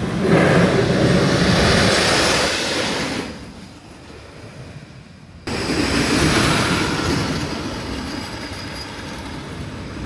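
Wooden roller coaster train running along its track with a rushing rumble. It passes loudly for about three seconds and fades, then starts abruptly again about five and a half seconds in and slowly fades away.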